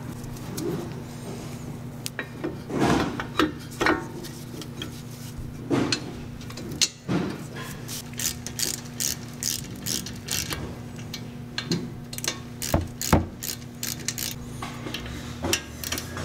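Hand ratchet clicking in quick runs as the brake caliper bolts are run in with a hex-bit socket, after a few knocks of metal parts as the caliper goes back on over the new pads in the first several seconds.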